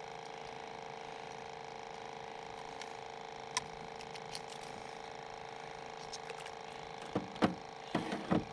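Fishing reel winding in a hooked catfish: a steady mechanical hum with a click partway through, then several sharp knocks near the end as the fish is brought in.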